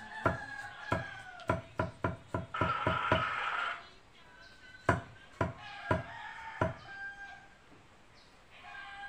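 A rooster crows once, about two and a half seconds in, over a run of sharp knocks that come irregularly, one to three a second.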